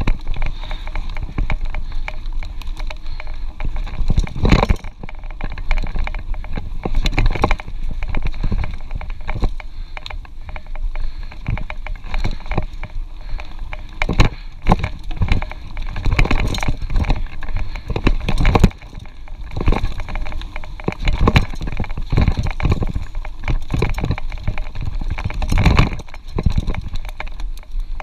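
Mountain bike running down a rough dirt trail: tyres and frame rattling and knocking over roots and bumps, with a constant low rumble of wind and ride noise on the microphone.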